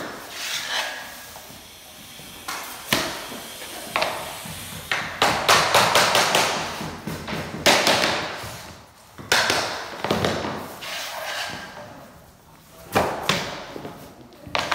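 Hammer striking a tapping block against the edge of laminate flooring planks to knock their joints tight: sharp knocks, some single and some in quick runs of several taps.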